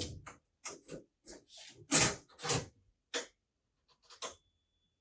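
About eight short, irregular knocks and clicks of handling against a refrigerated bakery display case while its interior height is measured.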